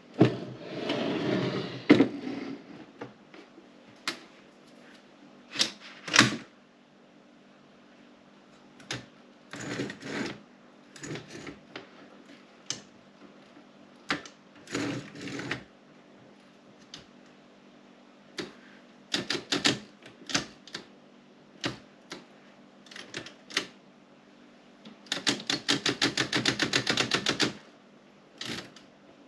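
Woodstock 5 manual typewriter being typed on: single key strikes land at irregular intervals. A longer rattling stretch fills the first two seconds, and a fast, even run of clicks lasts about two and a half seconds near the end.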